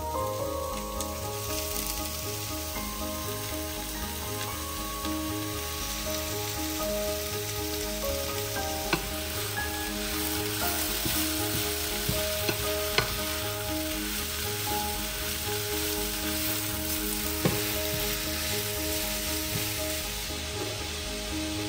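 Food sizzling steadily in hot oil in a frying pan, with a few sharp clicks, over background music.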